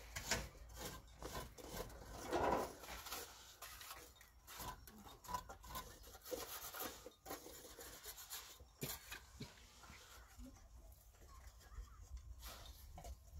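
Faint rubbing and scraping with scattered light knocks, with a louder scraping rush about two seconds in.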